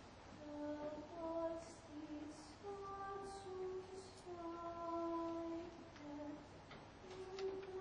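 A woman singing a slow melody alone, in long held notes, with the words sung rather than spoken.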